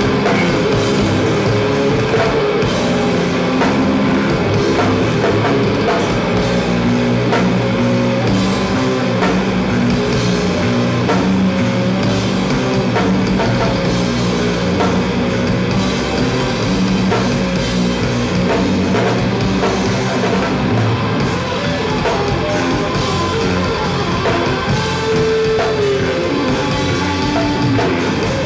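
Loud heavy metal band playing live without vocals: distorted electric guitar riffing over bass guitar and a drum kit.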